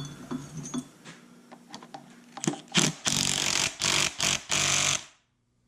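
Light metal clinks as a harmonic balancer puller is fitted to an outboard flywheel. About two and a half seconds in, a power tool runs in a string of short bursts, stopping about five seconds in.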